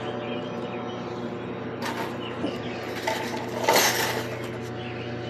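Metal wire cage trap clinking and rattling as it is handled and pulled out, with a few short rattles, the loudest just under four seconds in. Under it runs a steady mechanical hum.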